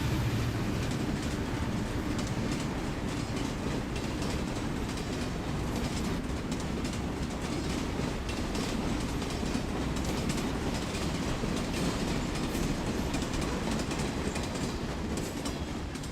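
Train running along the track: a steady rumble of wheels on rails, with repeated clicks from the rail joints. A low hum fades out in the first second.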